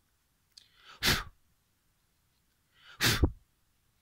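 Two loud, short bursts of a person's breath close to the microphone, about a second in and again about three seconds in, each with a brief intake or lead-in before the blast.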